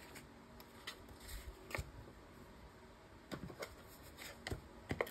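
Faint, scattered light clicks and taps of craft supplies being handled on a tabletop, a few at a time, while the card maker deals with an adhesive dispenser that has run out.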